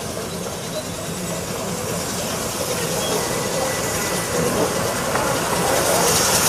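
Small narrow-gauge steam locomotive running with a train, steam hissing, growing steadily louder as it approaches.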